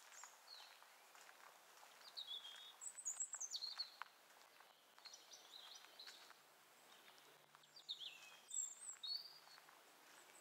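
Small songbirds chirping in short bursts of high, quick notes, many falling in pitch, loudest about two to four seconds in and again near the end.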